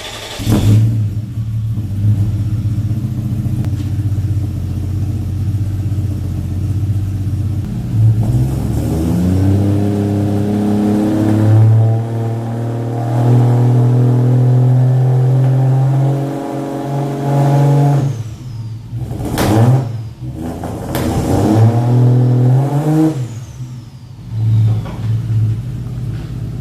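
Toyota 2JZ-GTE turbocharged straight-six running through a freshly built 3-inch exhaust with a cat-delete test pipe. It idles, then is revved up and held, gives two sharp throttle blips and settles back to idle.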